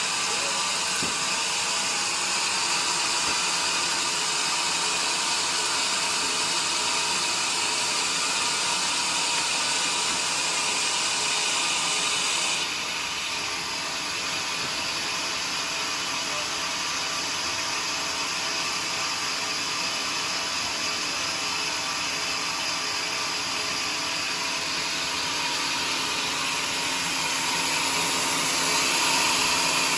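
Sawmill saw running steadily as it cuts through a joar log, a continuous machine whine with the rasp of the blade in the wood. About twelve seconds in the sound changes abruptly and drops slightly, and it swells again near the end.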